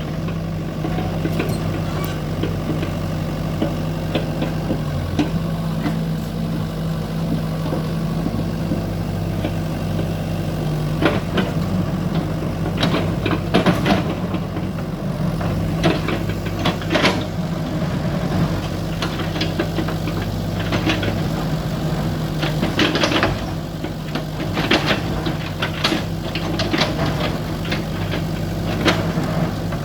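Excavator diesel engine running steadily with a low hum, joined from about a third of the way in by repeated sharp knocks and clanks as it works loading soil into a truck.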